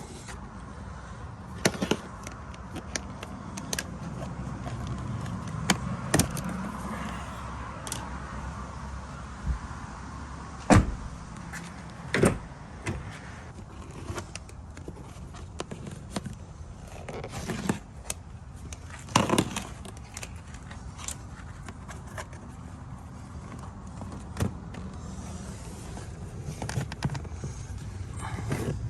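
Scattered clicks, knocks and rattles of hands and tools working on a car's plastic interior trim and wiring, with the loudest knocks around 11, 12 and 19 seconds in. A low steady hum runs underneath.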